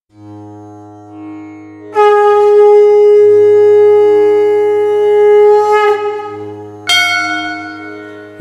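A conch shell (shankh) blown in one long steady note of about four seconds, then a second, higher blast near the end that fades away, over a low steady drone.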